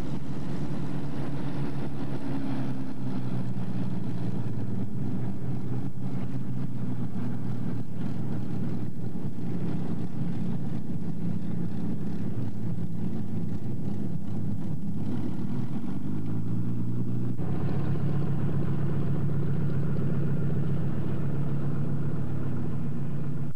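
Piston engines of a twin-engine propeller warplane running on the ground as it taxis, a steady engine note with a brief wavering, beating pitch past the middle, then a steadier, stronger engine note for the last few seconds.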